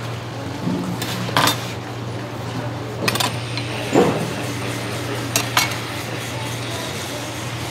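Scattered sharp clinks and knocks, with a duller thump about four seconds in, as cut salmon steaks are stacked into a styrofoam box at a fish-cutting bench. A steady low hum runs underneath.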